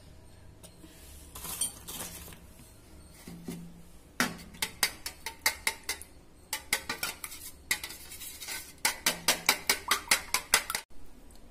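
Metal utensil clinking rapidly against a dish, in quick runs of several strikes a second, after a few scattered clinks.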